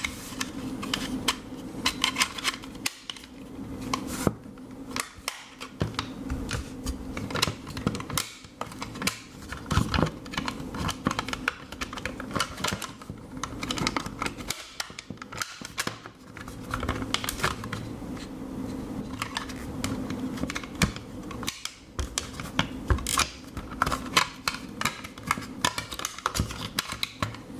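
Irregular plastic clicks and taps of a remote control being handled as its batteries and battery cover are pushed back in, over a faint steady hum.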